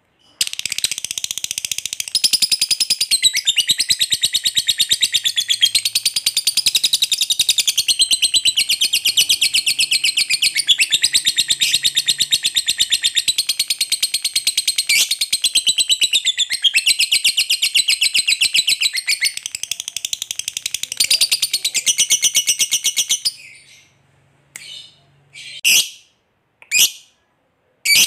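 Lovebird giving a long 'ngekek' trill: a rapid, unbroken, high-pitched chattering run that lasts about 23 seconds, then breaks off into a few short separate calls near the end.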